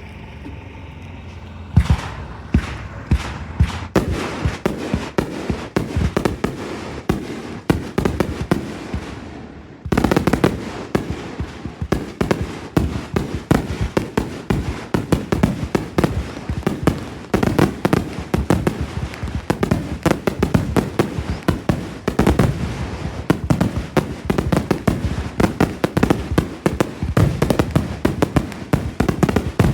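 Fireworks display: a rapid, near-continuous barrage of bangs and crackling that starts about two seconds in, eases briefly near the middle, then picks up again just as densely.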